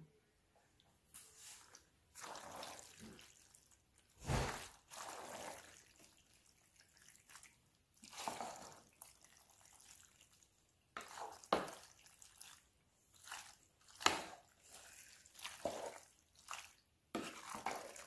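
Wooden spoon stirring and folding sauced pasta and shredded cheese in a pot: faint, irregular wet mixing strokes with short pauses and a few sharper knocks of the spoon.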